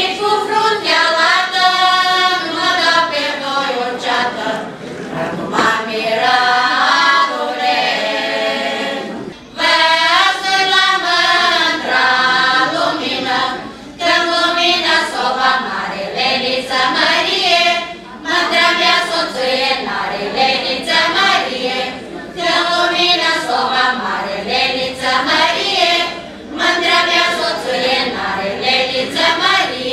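A group of women singing a Romanian Vlach folk song unaccompanied. The song moves in phrases, with a brief breath break about every four seconds.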